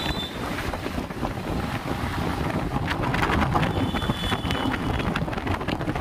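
Wind buffeting the microphone of a phone held out on a moving vehicle, over the rumble of road and traffic noise. A thin high tone sounds for about a second near the four-second mark.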